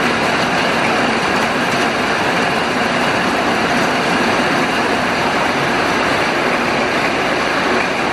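Heavy rain falling steadily, a dense even hiss with no letup.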